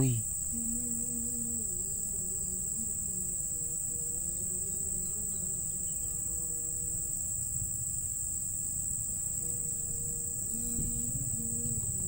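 Steady, high-pitched drone of an insect chorus that holds unchanged throughout, over a low rumble.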